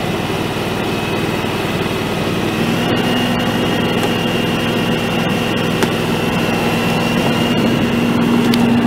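John Deere X738 garden tractor engine running steadily. About three seconds in its pitch rises slightly, and it gets a little louder near the end.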